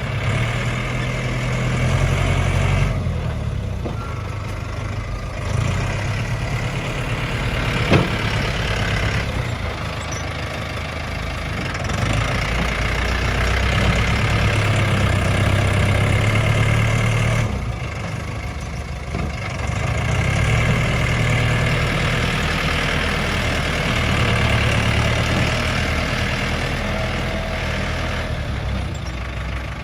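Tractor engine running while working as a bulldozer, its sound swelling and easing every few seconds as the load comes and goes. A single sharp knock about eight seconds in.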